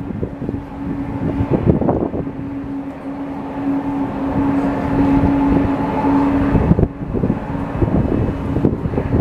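Distant airliner jet engine noise: a steady drone that grows louder toward the middle and drops away about two-thirds through, under heavy wind buffeting on the microphone.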